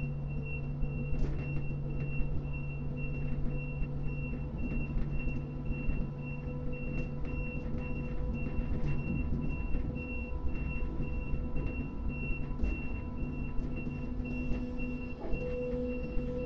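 Steady machinery hum and rumble of a port grab crane, heard from inside its operator's cab, with a high tone pulsing several times a second over it. Near the end a mid-pitched hum steps up and grows louder.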